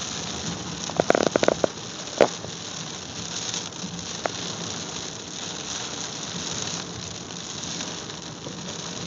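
Rain hitting a car's windshield, heard from inside the moving car as a steady hiss. There is a quick cluster of sharper taps about a second in and a single louder tap just after two seconds.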